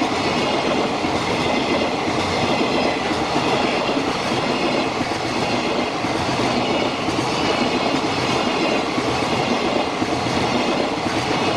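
Freight train of flatcars loaded with long rails rolling past close by: a loud, steady rumble and clatter of wheels on the track that holds at one level throughout.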